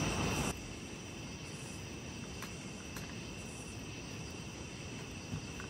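Steady night chorus of crickets and other insects, several high trills sounding together, with a few faint pops from the campfire. A louder rushing noise cuts off suddenly about half a second in.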